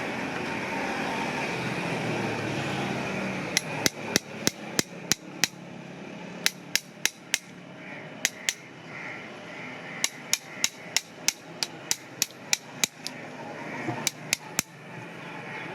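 A steady noise for about three seconds, then a farrier's hammer tapping in quick runs of light, sharp strikes, three to six at a time with short pauses between runs.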